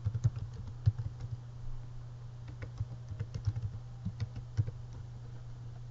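Typing on a computer keyboard: irregular clusters of keystroke clicks, with a steady low hum underneath.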